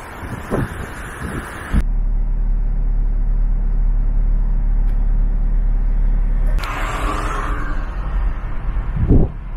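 Car on the road: a steady low rumble of engine and road noise, with wind buffeting the microphone at the start and again near the end. The sound changes abruptly about two seconds in and again past six seconds.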